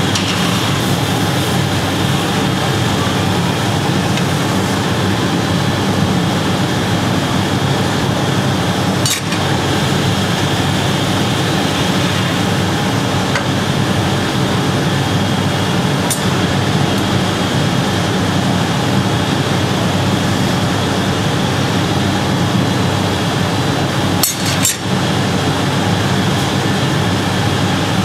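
Steady roar of a glassblowing workshop's gas-fired furnace burners and blowers, with three sharp clinks spread through.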